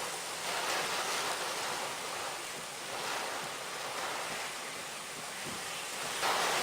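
Heavy rain pouring down in a steady hiss that swells and eases a little.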